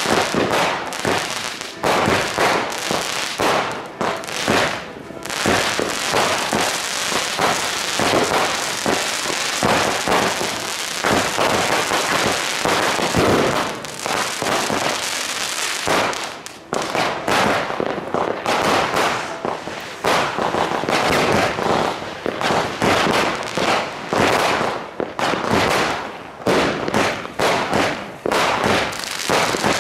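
Fireworks and firecrackers going off: a dense, almost unbroken crackle of bangs through the first half, a brief lull just after the middle, then many separate bangs in quick succession.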